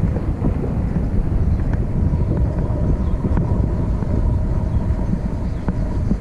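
A vehicle driving, a steady low rumble with a faint steady whine and a few short clicks or rattles.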